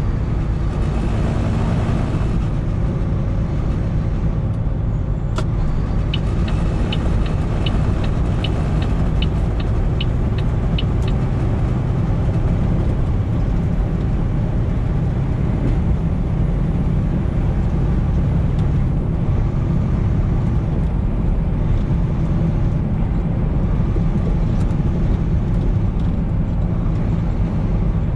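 Semi-truck cruising on the highway, heard from inside the cab: a steady low engine and road drone. About six seconds in, a run of light, evenly spaced ticks, a little over two a second, lasts for about five seconds.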